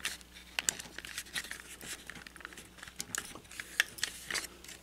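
Plastic parts of a Hasbro Transformers Studio Series Scourge action figure clicking and tapping as they are folded and pegged into place during its transformation: a run of small, irregular clicks.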